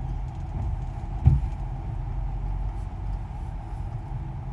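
Vehicle's engine and road noise heard from inside the cab, a steady low drone, with a single low thump about a second in.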